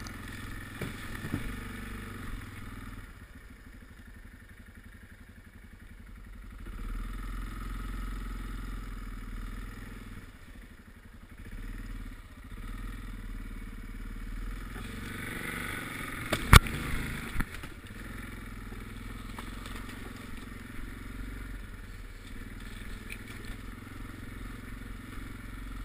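ATV engine running as it rides along a woodland trail, heard close from the handlebars, getting louder and easing off as the throttle changes. One sharp, loud knock about two-thirds of the way through.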